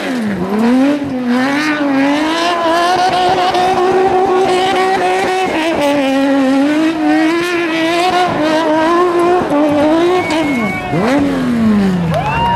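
Competition car's engine held at high revs while it spins donuts, the pitch wavering up and down as the throttle is worked, with tyre noise. Near the end the revs drop sharply and climb again.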